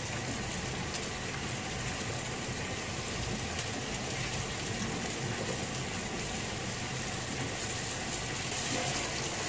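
Onions, garlic and tomato frying gently in oil under a layer of fresh red chillies: a steady, even sizzle with a low steady hum beneath it.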